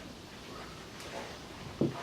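Light handling sounds of setting up the work: a faint click about halfway through and a short knock near the end, over a low steady background.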